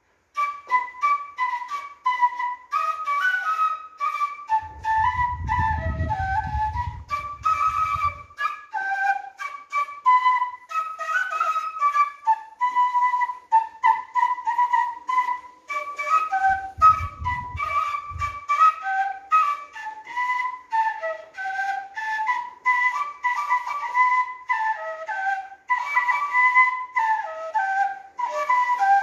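Transverse bamboo flute (Vietnamese sáo) playing a lively folk melody of quick, short notes. A low rumble comes in twice, around five seconds in and again near eighteen seconds.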